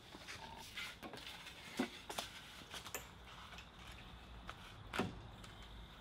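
A few light knocks and clicks of metal parts being handled as the guard is moved on a belt grinder's top wheel, the loudest about two seconds in and near the end.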